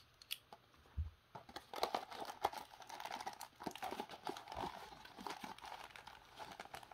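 A Beyblade's cardboard box being opened by hand: a few small clicks, then from about a second and a half in, steady crinkling and rustling of the box flaps and packaging, with many small clicks.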